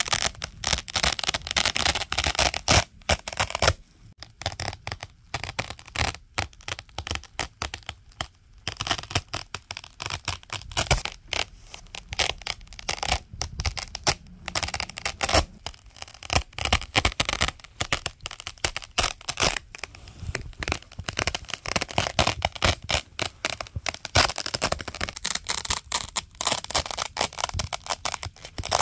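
Velcro hook-and-loop fastener being ripped apart and worked, a dense run of irregular crackling tears with a few brief pauses.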